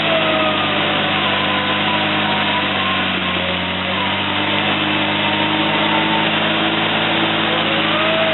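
A 4WD's engine running steadily while an electric winch whines under load, its pitch wavering up and down as the vehicle is hauled up a muddy bank.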